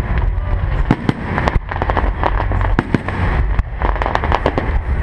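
Fireworks going off: many sharp bangs and cracks at irregular intervals over a steady low background rumble.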